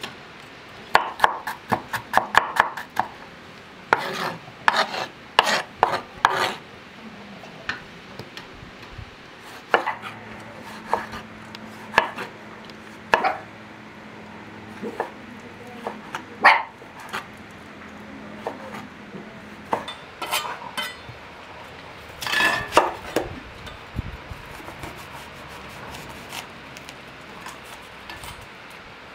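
Kitchen knife chopping tomatoes, and an onion near the end, on a wooden cutting board: irregular runs of sharp knocks, several quick strokes at a time, with pauses between.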